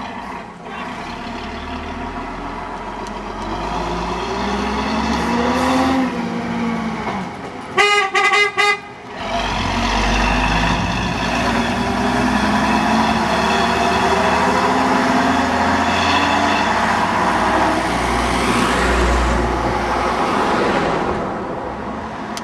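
Open-top double-decker bus's diesel engine pulling away and driving past, its note rising and falling as it picks up speed. About eight seconds in, a horn gives several quick toots.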